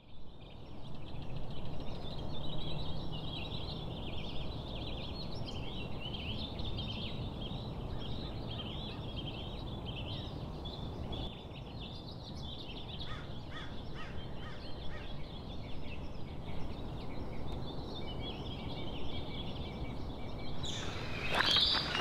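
Dawn chorus: many birds calling at once over a steady low background noise. Louder sharp clicks and rustling start near the end.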